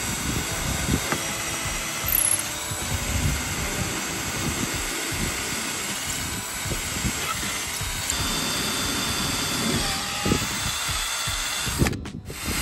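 12-volt cordless drill running steadily as it bores a winch mounting hole through a teak winch base, with uneven low rumbling as the bit bites. The sound cuts out briefly near the end.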